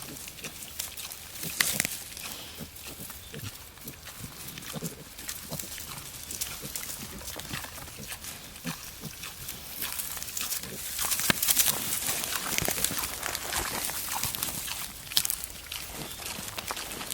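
Wild boar sow and piglets grunting and squealing, with rustling and crackling as they move through the forest floor; the rustling gets louder and busier about ten seconds in.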